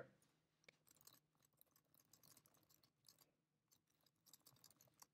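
Near silence: faint room hum with a few scattered, faint computer keyboard clicks from typing.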